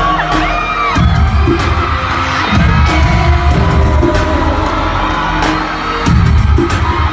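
A pop song played live and loud through a concert sound system, with a heavy bass beat, sharp percussion hits and singing, and an arena crowd screaming over it.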